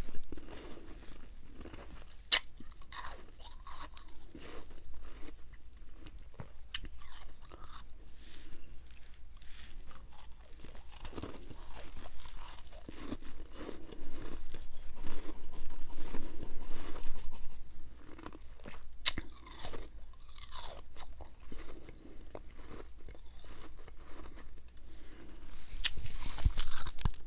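Close-up crunching and chewing of freezer frost and ice in a person's mouth: a run of sharp crackles and crunches, louder and denser for a few seconds past the middle and again near the end.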